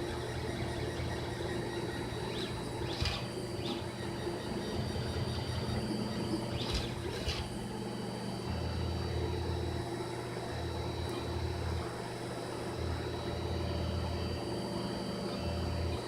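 Monoprice Select Mini 3D printer running a print: stepper motors whirring and humming, the tone shifting and stopping and starting every second or two as the head changes moves, with a few brief high chirps.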